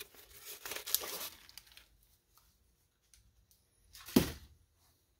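Crumpled brown kraft paper crinkling and rustling as it is pulled out of a felt clog, for about the first two seconds. About four seconds in comes a brief, louder rustle with a thud.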